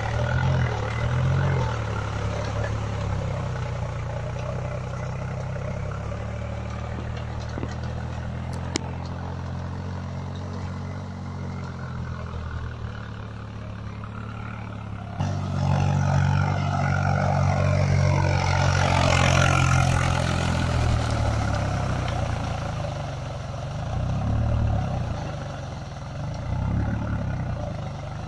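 Swaraj 735 tractor's three-cylinder diesel engine running under load as its cage wheels work through deep paddy-field mud. The engine is quieter and steady at first, louder from about halfway, and its speed rises and falls several times near the end.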